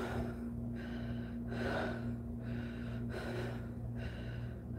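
A woman breathing heavily and audibly close to the microphone, a breath in and out about every second and a half, over a steady low hum.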